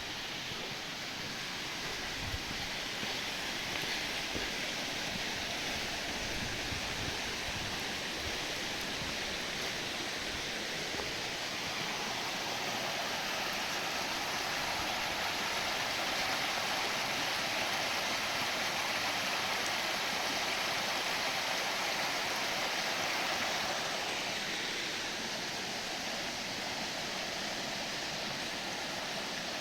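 Mountain stream rushing over rocks, a steady noise of running water that swells louder around the middle and eases off again near the end.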